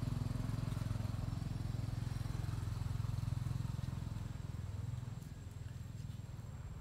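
A motor vehicle engine, likely a motorcycle, runs with a low, steady hum, then fades away over the last couple of seconds.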